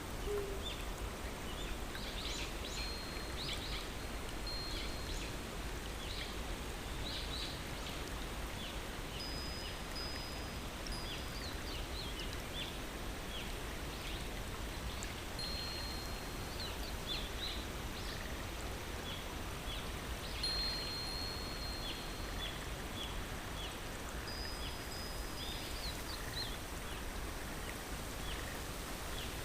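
A stream running with a steady rush, with many small birds calling over it in short high chirps and a few held thin whistles. A low hoot ends right at the start.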